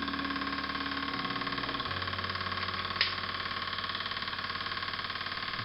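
Mamod TE1A model traction engine running steadily with a fast, even chuff, freshly rebuilt and being bedded in. A single sharp click about three seconds in.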